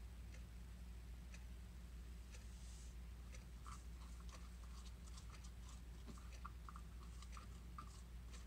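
Plastic spoon stirring lye solution in a plastic pitcher: faint, irregular scraping and clicking against the sides, over a low steady hum.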